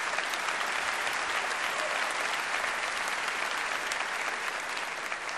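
Large audience applauding steadily, easing off near the end.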